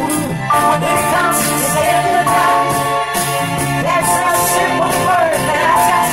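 A woman singing into a handheld microphone over a backing track with a steady beat, holding long notes.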